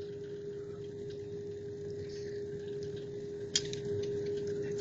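Airliner cabin noise during the landing roll, heard from inside the cabin: a steady low rumble carrying one constant hum-like tone. A single sharp click comes about three and a half seconds in.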